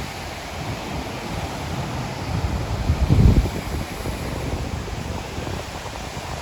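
Wind buffeting the microphone over the wash of sea surf, with a stronger gust about three seconds in.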